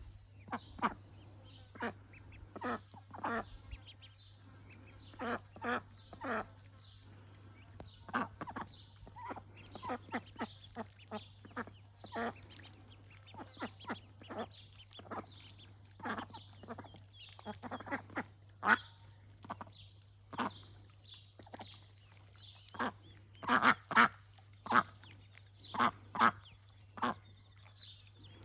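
Ducks calling: a long run of short, separate calls, often several a second, getting louder from about three quarters of the way in, over a faint steady low hum.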